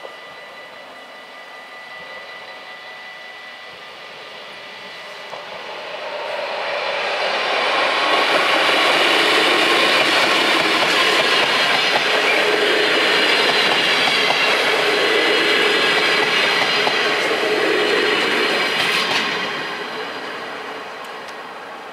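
Level-crossing bells ringing steadily, then an NS DDZ double-deck electric train passing over the crossing. The train noise builds from about six seconds in, stays loud for about twelve seconds, and fades near the end.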